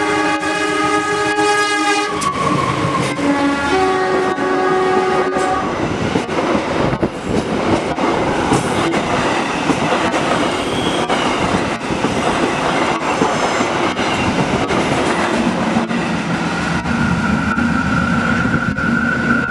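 Diesel locomotive sounding its chord horn in two long blasts as the passenger train passes fast and close, then the coaches rushing by with a dense rumble of wheels clicking over the rail joints. Near the end a steady high tone sets in over the rumble.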